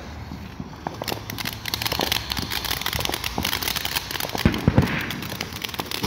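Ground fountain firework spraying sparks, a steady hiss with dense crackling. Two low thumps come about four and a half seconds in.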